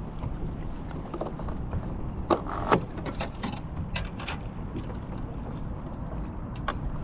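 Scattered sharp clicks and knocks of fishing gear being handled in a boat, over a steady low rumble of wind and water.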